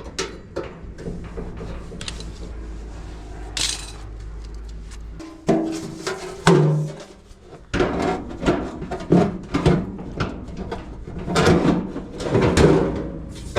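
Knocks and clatter of dryer parts being handled and moved around. A steady low hum stops about five seconds in.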